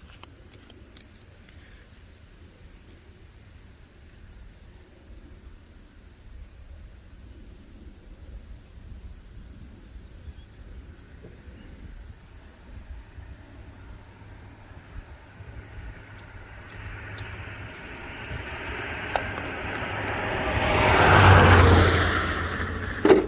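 Crickets chirring steadily, with a car driving past: its road noise builds over several seconds, is loudest near the end, then fades away.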